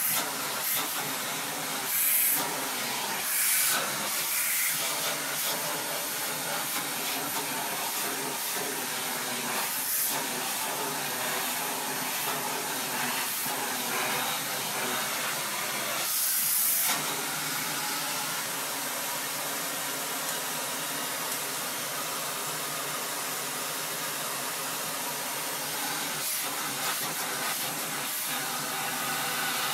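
Vacuum cleaner running steadily through its hose and brush attachment as it is drawn over a dog's coat: a steady motor hum with a rush of air, surging louder and hissier a few short times.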